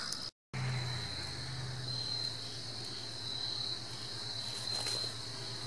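Crickets chirring steadily in a high, pulsing trill, broken by a brief dropout to silence about half a second in, with a faint click about five seconds in.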